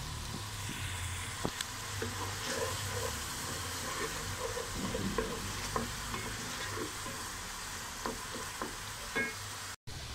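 Tomato and green-chilli masala sizzling in oil in a pot as a wooden spoon stirs it, with irregular light knocks and scrapes of the spoon against the pot. The sound drops out briefly just before the end.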